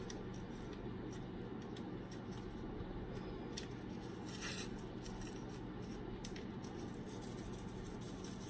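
Faint rustling and small ticks of a paper-foil Sazón seasoning packet being handled and shaken out, with a brief louder rustle about four and a half seconds in, over a low steady hum.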